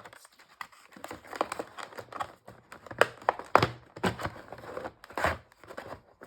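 Packaging being torn open and handled: irregular crinkling, tearing and sharp crackles as the screwdriver set's packet is opened.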